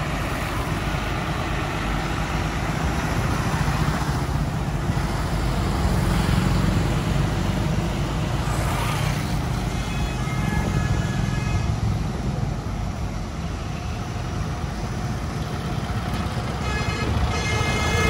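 A convoy of Tata trucks hauling combine harvesters drives past, their diesel engines and tyres making a steady rumble. A horn sounds about ten seconds in and again near the end.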